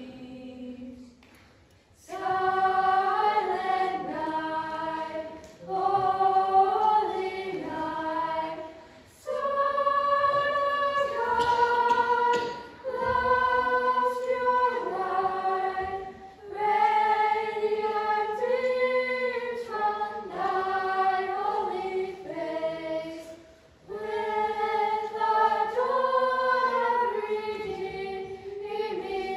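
Small youth choir of girls and boys singing a cappella, in sung phrases separated by short breaths.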